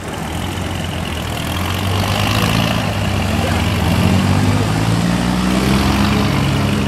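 Large tractor's diesel engine working under load in deep mud. From about two seconds in it grows louder and its pitch climbs slightly, then it holds at the higher speed.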